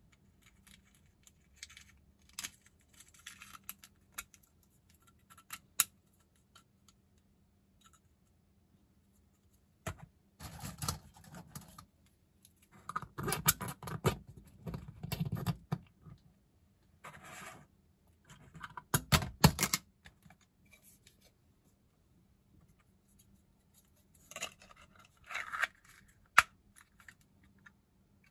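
3D-printed plastic parts being handled and fitted together by hand: scattered clicks, scrapes and rattles, coming in spells through the middle and again near the end.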